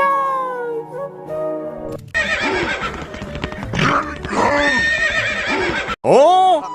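Background music, then from about two seconds in a horse neighing and whinnying several times, each call rising and falling in pitch, with the loudest call near the end.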